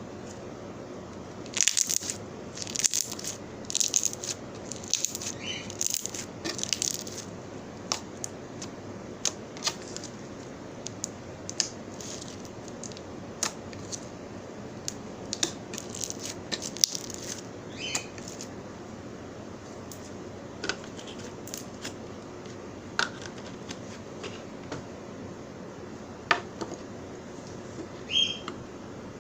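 Slime being squeezed and pressed by hand, giving irregular sticky pops, clicks and crackles. The pops come thick and loud over the first several seconds, then thin out to scattered clicks.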